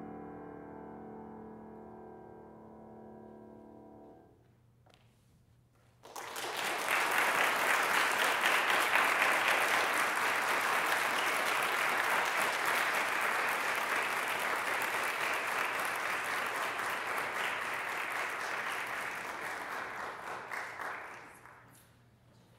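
The last chord of a grand piano dies away over about four seconds. After a short silence, an audience breaks into applause, which runs for about fifteen seconds and then fades out.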